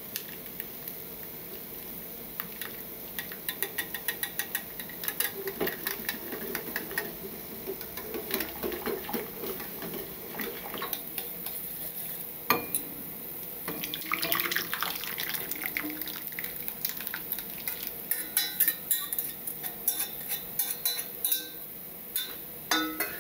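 Miso being stirred into hot soup in a stainless steel saucepan, with many small clinks of the utensil against the pot. Later the pot is tipped and the soup is poured into a ceramic bowl: liquid splashing and pouring, with occasional knocks of metal on the bowl and counter.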